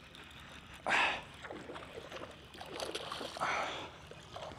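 A hooked bass splashing at the water's surface: two short splashes, the first about a second in and the louder of the two, the second a little past three seconds in.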